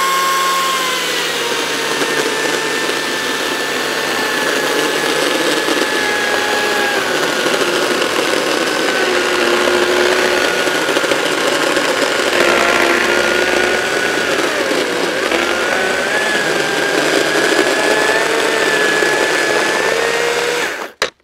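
Makita XCU03 36-volt brushless cordless chainsaw cutting through a tree stump. A steady electric-motor whine with chain-and-wood noise, its pitch sagging and recovering as the bar is pressed into the cut. It stops suddenly near the end.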